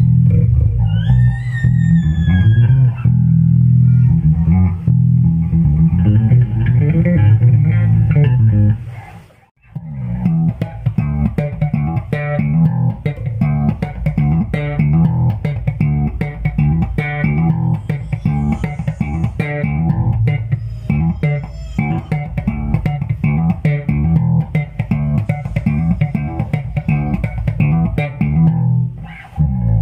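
ESP LTD D-5 five-string electric bass played fingerstyle in a continuous bass line. The playing stops briefly about nine seconds in, then resumes with quicker, busier notes.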